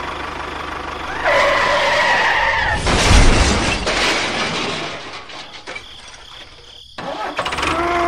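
Tractor engine chugging steadily, getting louder for a few seconds about a second in, with two short pitched sounds over it, one about a second in and a shorter one near the end.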